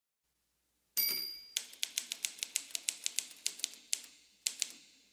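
Manual typewriter being typed on: a ringing ding about a second in, then a quick run of sharp keystrokes, about six a second, a short pause, and two more strokes near the end.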